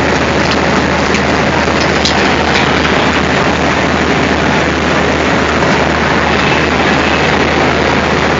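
ALCO diesel locomotive engine running steadily with a constant low hum, heard close beside the coupling. A few light metallic clicks come in the first couple of seconds.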